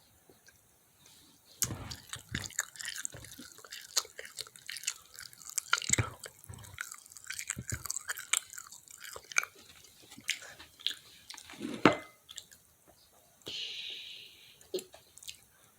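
Close-up chewing and biting of a piece of fried chicken: crisp crunches and wet mouth clicks, the loudest crunch near the end, followed by a brief rustle.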